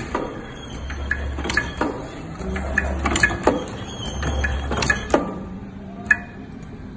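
Automatic tea bagging machine running, its mechanism clacking roughly every half second over a low pulsing hum. The clacking thins out after about five seconds, leaving one more click near the end.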